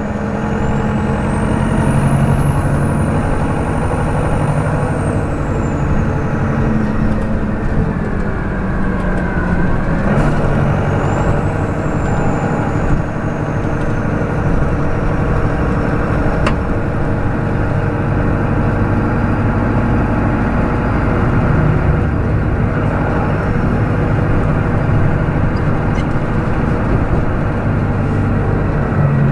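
Detroit Diesel Series 50 inline-four diesel engine of a New Flyer D40LF transit bus running, heard up close to the engine. A high whine rises and then falls over the first few seconds, and again just after ten seconds in.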